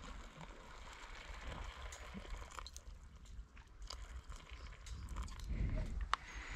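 A foil dried-meal pouch crinkling, with a spork scraping and clicking inside as water is stirred into the food. It comes as faint, scattered small crinkles and clicks.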